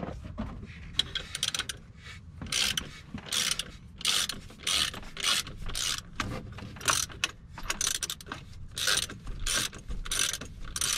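Ratchet wrench clicking in repeated strokes, about one and a half a second, as it turns the centre screw of a gear puller to draw the AC compressor pulley off its shaft.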